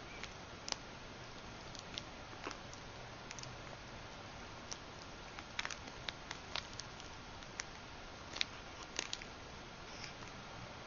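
Faint, irregular little clicks and taps of a metal bead chain as a kitten bats at it and bites it, coming in small clusters.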